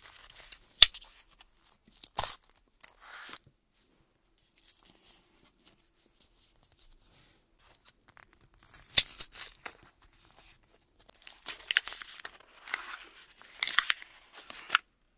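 Paper gum wrapper being torn open and unfolded by hand, crinkling and tearing in bursts, with two sharp clicks about one and two seconds in as a small cardboard box is pulled apart.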